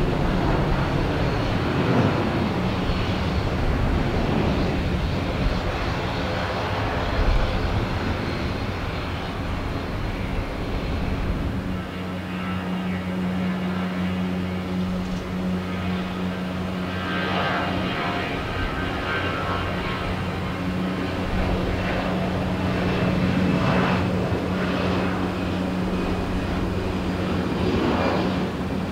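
Airliner engines running, a broad rumble that gives way about halfway through to a steady hum with higher engine tones over it.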